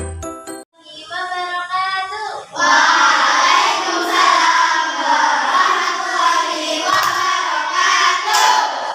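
A chime jingle ends at the start; then one voice sings a line, and from about two and a half seconds in a class of children joins in, singing loudly together in unison.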